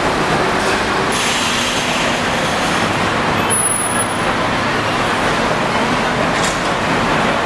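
Steady traffic noise from buses running at an airport kerb, with a brief hiss about a second in.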